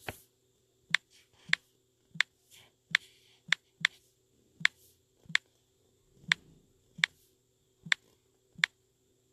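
A run of about a dozen sharp, short clicks, coming irregularly every half second to a second, over a faint steady hum.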